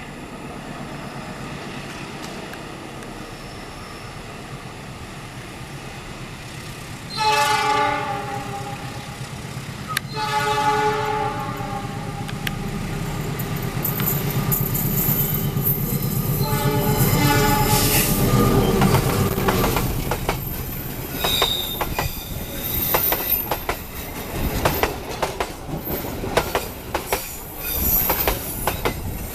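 CC206 diesel-electric locomotive sounding its horn in three long blasts as the train approaches, the engine rumble growing underneath. The train then passes with a steady clatter of wheels over rail joints.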